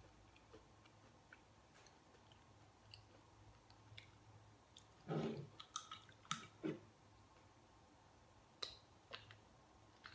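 Faint chewing of a fried Doritos Loaded jalapeño and cheese bite, with scattered small clicks. A short cluster of louder knocks and clicks comes about five to seven seconds in as a soda can is picked up from the table.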